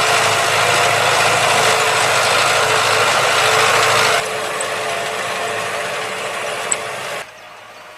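John Deere 5100R tractor's four-cylinder diesel engine working steadily while ploughing, with a rattling, clanking mechanical noise over it. The sound drops abruptly about four seconds in, and much further near the end, leaving a faint steady engine hum.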